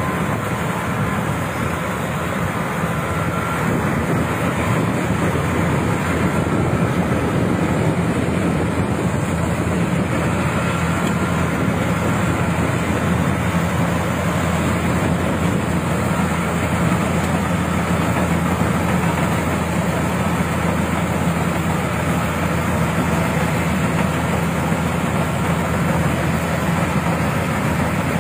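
A Crown Sumo 106 rice combine harvester running, with a steady engine-and-machinery hum that holds an even level throughout.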